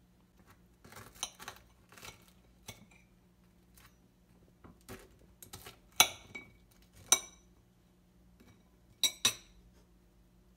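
Metal fork clinking and scraping on a plate while cutting into a waffle: a run of small clicks, with sharper ringing clinks about six and seven seconds in and two quick ones near the end.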